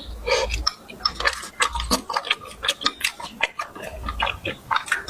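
Close-up chewing and lip smacking: a person eating with the mouth open, making many irregular wet clicks and smacks.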